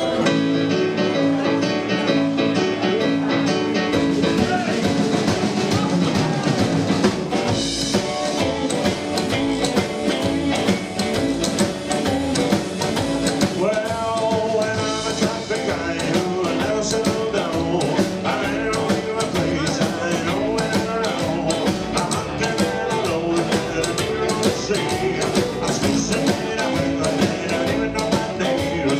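Live rock-and-roll band playing a song on electric guitar, keyboard, drum kit and upright bass, with a driving beat; the cymbals get busier from about halfway through.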